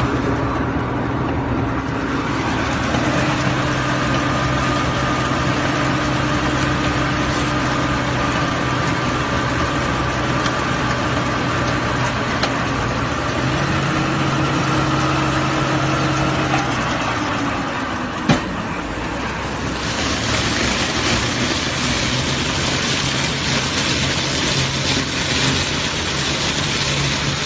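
Silage baling and wrapping machine running with a steady mechanical hum. A single sharp click comes about two-thirds of the way through, and soon after a louder hiss joins the hum.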